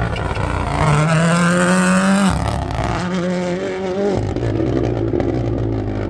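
Rally car accelerating hard past on a stage, its engine pitch climbing and then dropping sharply at two upshifts, about two seconds in and about four seconds in.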